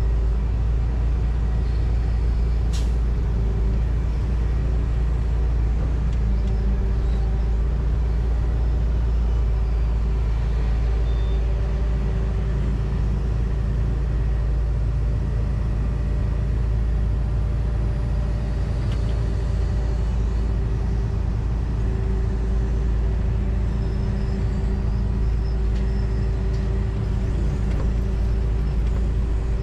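John Deere 245G excavator's diesel engine running steadily, heard from inside the cab, with a single sharp click about three seconds in.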